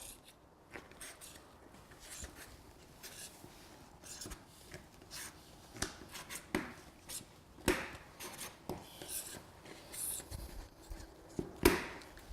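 Putty knife and pry bar scraping and clicking against the bottom of a door as the old integral door sweep is pried out of its slot. Soft scattered scrapes with a few sharper clicks, the loudest near the end.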